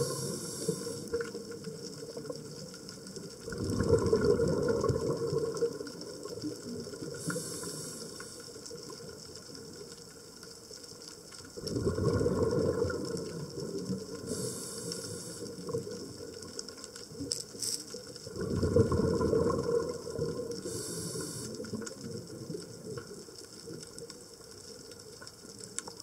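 Scuba diver breathing through a regulator underwater. Each breath is a short high hiss of inhalation, then a rumbling gush of exhaled bubbles, repeating about every seven seconds, with three bubble bursts in all.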